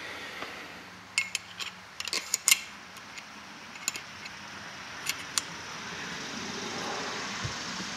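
Sharp metallic clinks and taps as a heated ball bearing is slid onto a chilled scooter crankshaft and the steel crank is handled against a wooden block: a quick cluster of clinks in the first few seconds, a single one near the middle and two more a second later.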